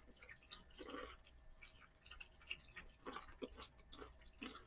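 Faint closed-mouth chewing of a bitten Pringles potato crisp, a scattering of soft crunches.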